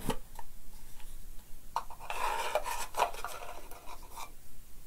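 A small cardboard box being opened and fingers rummaging inside it: a few light clicks, then about two seconds of scraping and rubbing against the card, with a couple of sharper taps.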